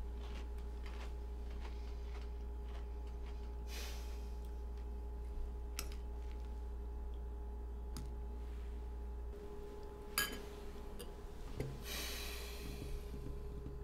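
Steady low electrical hum of the room recording, with a few light clinks of a metal spoon against a ceramic cereal bowl and a couple of soft swishing sounds.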